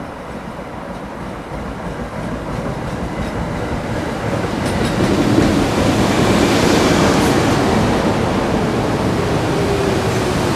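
Metro-North M2 electric multiple unit pulling in along the platform: a steady rumble of wheels on rail that grows louder as the cars come alongside, with a few sharp clicks. Near the end a faint tone slides slowly down as the train slows.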